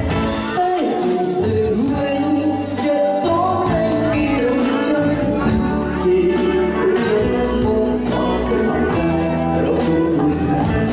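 Live Khmer pop band music: a melodic lead line over steady held chords, with a regular beat of high, bright percussion ticks.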